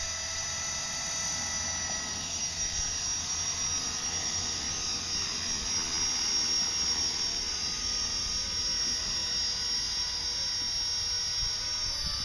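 Blade SR electric RC helicopter's motor and main rotor running: a steady high-pitched whine with rotor noise, growing a little louder as it lifts off into a low hover.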